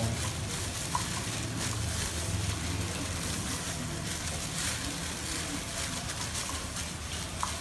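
A plastic bag crinkling and rustling as a bag-covered hand works raw frog meat around in its chili-garlic marinade in a bowl, over a steady low hum.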